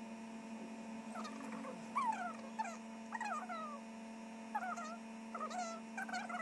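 An animal giving a series of short, high whining calls, most of them falling in pitch, repeating every half-second to a second, over a steady low hum.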